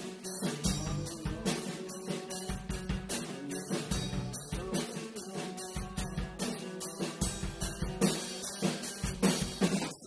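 Original band music: a drum kit playing a steady beat with kick and snare hits over sustained guitar and bass. The full band drops out abruptly at the very end.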